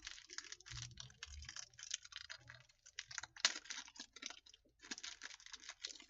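Plastic packaging crinkling and crackling as it is handled and opened by hand, a rapid irregular run of small crackles with a sharper crack about three and a half seconds in.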